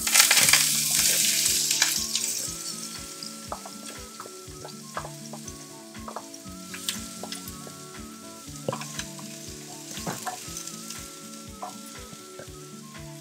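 Chopped red onion and parsley dropped into hot oil with crushed garlic in a frying pan. They hit with a loud sizzle that eases after about two seconds into a steady frying sizzle, with clicks and scrapes of stirring.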